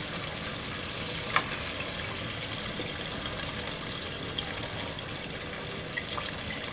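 Flour-coated chicken pieces deep-frying in hot oil: a steady bubbling sizzle with scattered crackles. One sharp click about a second and a half in.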